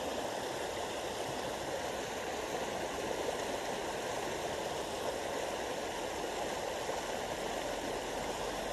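Creek water running steadily through a shallow ford, an even rushing sound.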